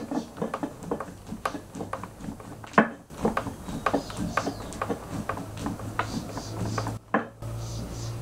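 Irregular sharp taps and knocks, several a second, over a low steady hum that comes in about a second in; the sound drops out briefly twice.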